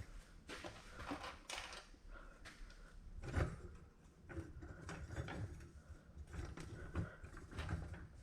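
Irregular knocks, clicks and rustles of hands at work, loudest a little over three seconds in.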